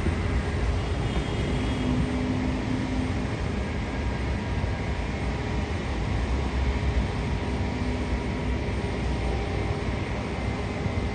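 Boeing 767-300ER jet airliner landing, its engines making a steady rumble with faint steady tones above it.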